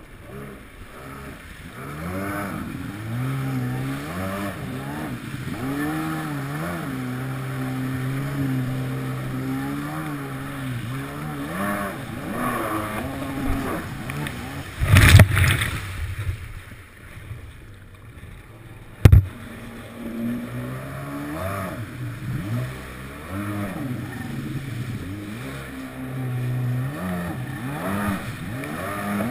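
Kawasaki 750SX stand-up jet ski's two-stroke twin engine running and revving up and down as it rides. Around the middle there is a loud rush of water against the hull, and a few seconds later a sharp thump.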